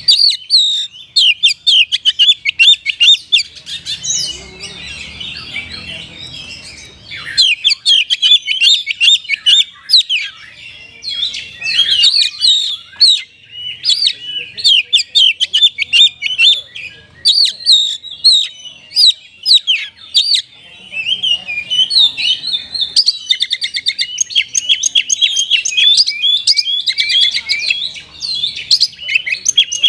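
Oriental magpie-robin (kacer) singing a loud, fast, nearly unbroken song of sharp chirps, whistles and rapid trills, a song that copies the calls of the kapas tembak.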